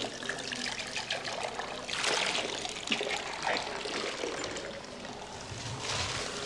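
Hot mineral spring water trickling from the metal spouts of a spa drinking fountain, pouring into porcelain spa cups and splashing into the basin below.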